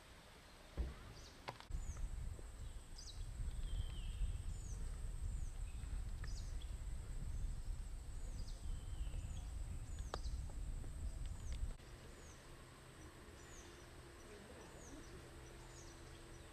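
Outdoor reservoir-side ambience: a bird repeats short, high, falling chirps about once a second over a steady high-pitched insect drone. A low rumbling noise comes in about two seconds in and cuts off sharply near twelve seconds.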